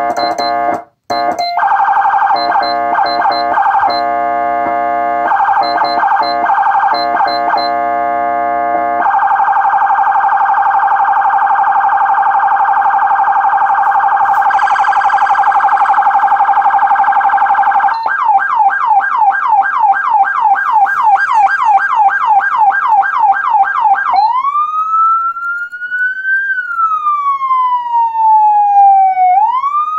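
Federal Signal SmartSiren SS2000 electronic police siren played through its tones. First comes the buzzy air-horn tone, stabbed in short choppy blasts and then held steady. About 18 s in it gives way to the fast-sweeping priority tone, about three or four sweeps a second. About 24 s in it changes to the slow rising and falling wail.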